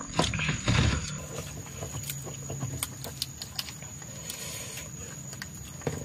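Eating by hand from a plastic food box: chewing and wet lip-smacking with many small irregular clicks, heaviest in the first second. A steady high-pitched whine runs underneath.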